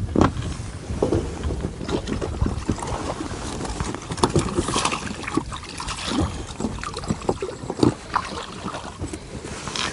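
Irregular small splashes of water with scattered knocks and rustles of hands working at the water's edge.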